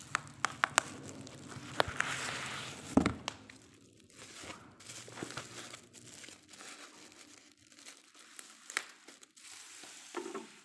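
Plastic bubble wrap and cardboard crinkling and rustling as a bubble-wrapped package is handled and lifted out of a cardboard box. Several sharp clicks and a thump about three seconds in, then quieter, sparser rustling.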